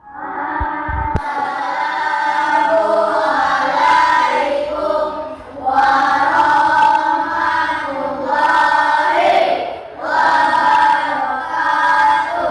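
A group of children singing a song together in unison, in sung phrases with short breaks about five and a half and ten seconds in.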